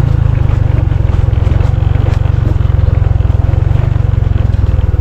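Motorcycle engine running steadily with a deep, rapid chugging.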